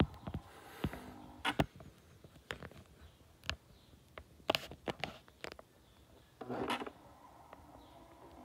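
Irregular small clicks and taps with two short rustling bursts, one about a second in and one near the seven-second mark: handling noise from a camera being held and operated.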